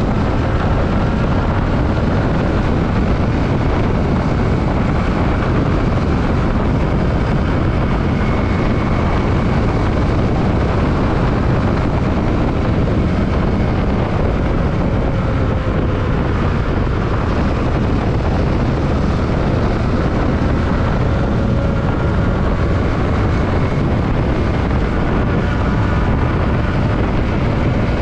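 Yamaha WR155R single-cylinder motorcycle on the move: a steady rush of wind over the microphone, with the engine's note faintly underneath, drifting slightly in pitch.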